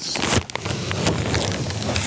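Stiff brown paper backing being torn and peeled off a photo print, the paper crackling and crinkling continuously, with a sharper crackle about a third of a second in.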